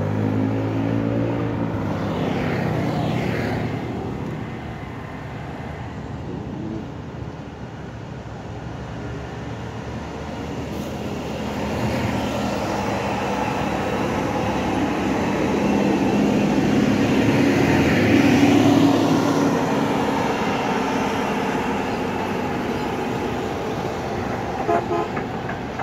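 Road traffic passing close by: cars, trucks and motorcycles, their engines and tyres swelling and fading as each goes past, loudest about two-thirds of the way through.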